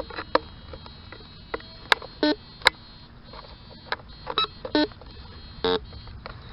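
Metal detector sounding about four short beeps over a buried target, with a few sharp clicks in between; it reads the target as a quarter about 2 inches down.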